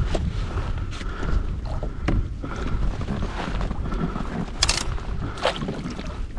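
Wind buffeting the microphone and water moving around a fishing kayak, with a few scattered light knocks.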